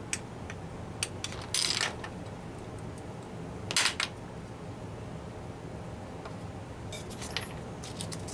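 Small hand tools and metal parts handled on a workbench: a few light clicks and two short clattering noises, the second and loudest about four seconds in, with more clicks near the end.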